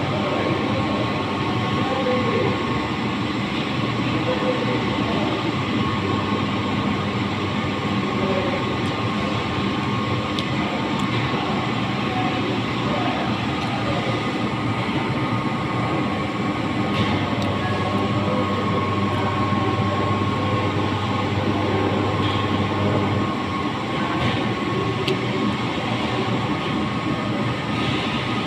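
Steady mechanical rumble with a constant hum underneath, unbroken throughout.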